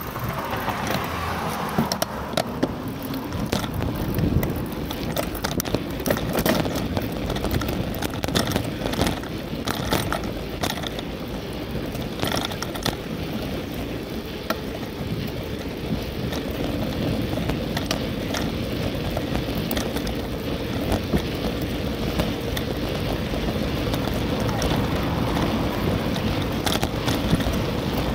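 Riding noise picked up by a camera on a moving bicycle: a steady low rumble of road and wind noise, with frequent sharp clicks and rattles.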